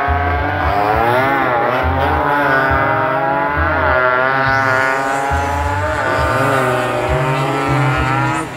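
Racing motorcycle engines revving hard, their pitch rising and falling again and again as the bikes come down the street and pass.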